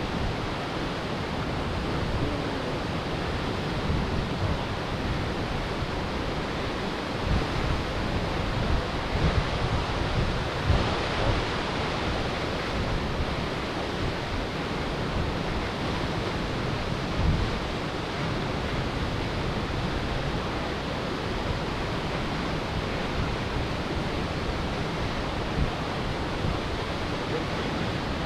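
Bjarnarfoss waterfall rushing in a steady, even roar, with wind buffeting the microphone in gusts.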